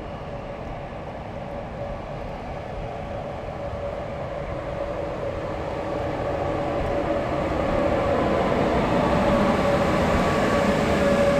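Rc6 electric locomotive hauling a passenger train approaching and rolling past along a platform, its rumble growing steadily louder, with a steady whine that strengthens as it nears.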